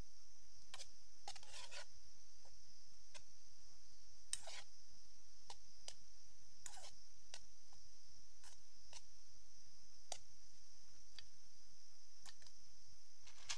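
Metal fork clicking and scraping against a small camping cooking pot in irregular strokes, a few seconds apart, over a steady high-pitched hiss.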